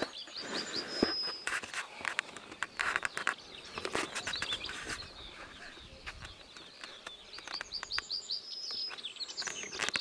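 Songbirds singing: a quick run of high chirps ending in a short held whistle, about a second in and again near the end, over scattered clicks and knocks.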